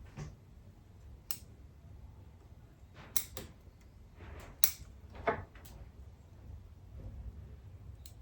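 Bonsai wiring work: about eight sharp snips and clicks at irregular intervals from wire cutters and metal wire being handled, over a low steady room rumble.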